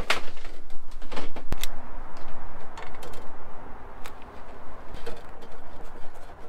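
Several short, sharp clicks and knocks over a steady hiss: three close together in the first two seconds, then single ones about four and five seconds in.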